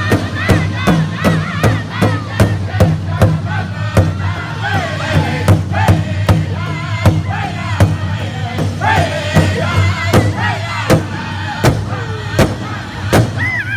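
A powwow drum group singing: a large hand drum struck in a steady, even beat by several drummers, with many high, wavering voices chanting together over it.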